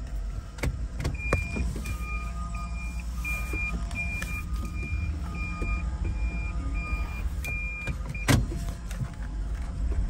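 Steady road and engine rumble inside a moving car's cabin, with about ten short high electronic beeps at an even pace from about a second in until near the end, and one sharp knock near the end.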